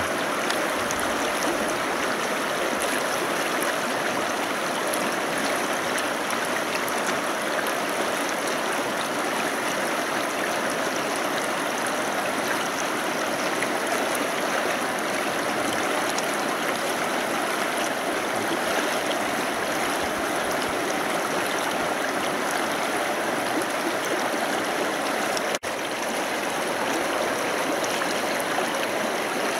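Steady rushing of a flowing taiga river. It breaks off for an instant near the end.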